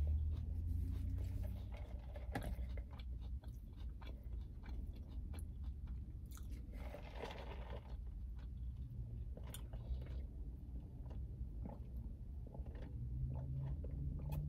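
Close-up chewing of McDonald's chicken nuggets and fries, with many small mouth clicks. About halfway through there is a brief sip of a drink through a straw.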